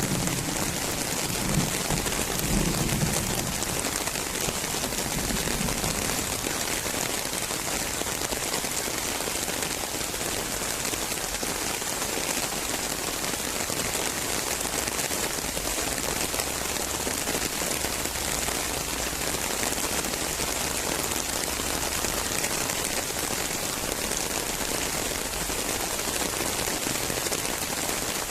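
Rain falling steadily, an even dense hiss, with a few louder low sounds in the first few seconds.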